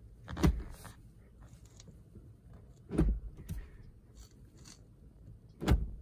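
Manual gear lever fitted with a Whoosh Motorsports short shifter in a 2014 Ford Fiesta ST being thrown through its gates: three short clunks, about two and a half seconds apart, as the lever is shifted out of neutral and into gear.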